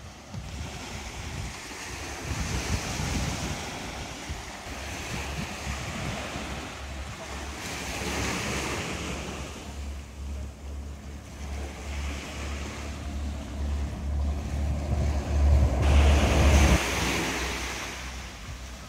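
Sea waves breaking and washing in, with three surges of surf hiss a few seconds apart, the last one the loudest. Under them, wind rumbles on the microphone and drops away suddenly near the end.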